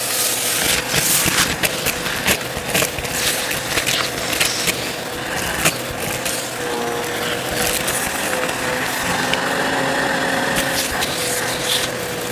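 Bissell CleanView upright vacuum running with a steady motor whine, and frequent clicks and crackles of debris being sucked up.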